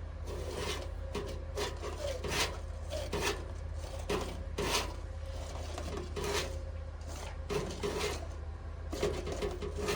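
Repeated irregular scraping and rubbing strokes, roughly one or two a second, over a steady low hum.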